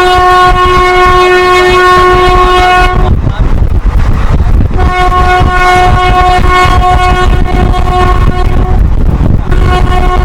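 WAP-4 electric locomotive's horn blown in long, steady blasts: one of about three seconds, another of about four seconds starting about five seconds in, and a third starting near the end. Under the horn runs the loud rumble of the train at speed.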